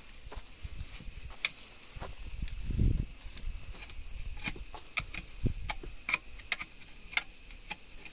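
Scattered light clicks and knocks from objects being handled, with one dull low thump about three seconds in.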